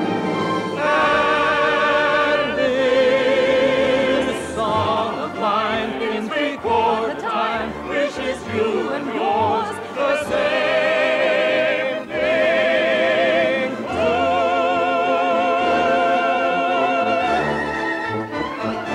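Operatic singing with a wide vibrato on long held notes, over orchestral accompaniment.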